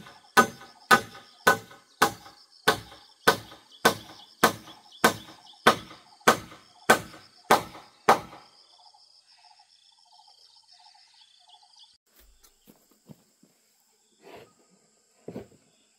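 Steady hammering on the wooden pole frame of a cabin roof: about fifteen even blows, a little under two a second, stopping about eight seconds in. A steady high drone of insects sounds behind the blows.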